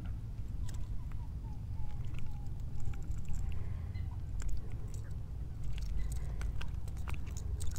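Handling noise as a netted largemouth bass is unhooked and lifted in gloved hands: scattered light clicks and taps over a low steady rumble. A faint series of short falling notes sounds in the first few seconds.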